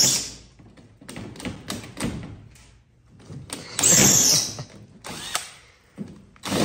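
Cordless drill drilling into a race car's sheet-metal hood to take the panel off. It runs in a short burst about four seconds in and starts again near the end, with scattered clicks and knocks of metal in between.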